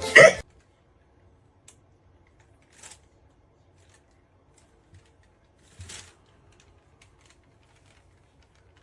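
Near silence, broken by a few faint, short rustles or taps.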